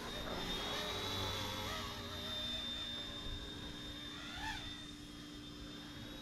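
Small electric RC scale helicopter (RTR 206 JetRanger) in flight: its motor and rotors give a steady high whine over a low hum, the pitch wavering briefly early on and again near the end.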